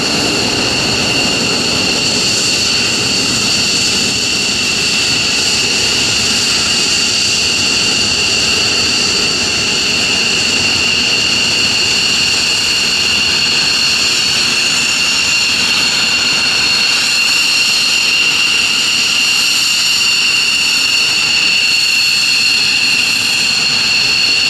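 F-15 fighter's twin jet engines running at low power as it taxis, a loud steady high-pitched whine over a constant roar.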